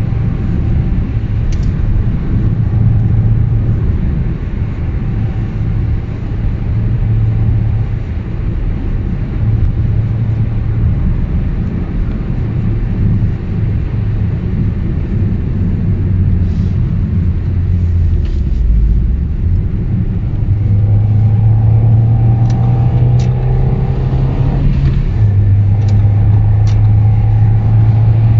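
Lada Vesta 1.8's four-cylinder engine and CBD aftermarket exhaust heard from inside the cabin while driving at speed: a steady low drone over road noise. It grows louder about two-thirds of the way through as the revs climb, the booming through the body that the owner finds tiresome on the highway.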